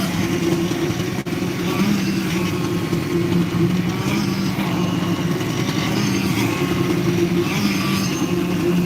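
Construction machinery running steadily at a concrete pour, with a constant droning hum.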